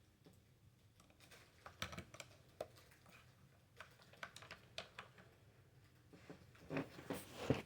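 Faint, scattered light clicks and taps of a plastic anime figure and its parts being handled and fitted, a few each second, busier near the end.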